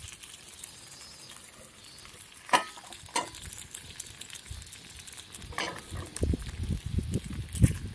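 Bacon and eggs sizzling in a pan over a wood campfire, with a few sharp clicks at about two and a half, three and five and a half seconds in. Dull low knocks come near the end.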